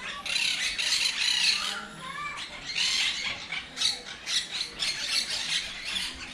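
Parrots and cockatoos squawking, harsh screeching calls one after another with short gaps.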